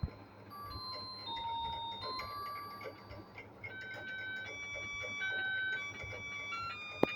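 Symphony L46 phone's built-in ringtone: a simple electronic melody of clean stepping notes played through the phone's small speaker. There is a sharp click right at the start and another about 7 seconds in.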